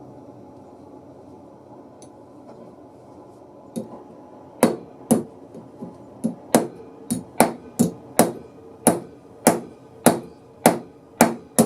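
A hammer striking repeatedly in woodworking, starting about four seconds in and going at about two blows a second, over a low steady background hum.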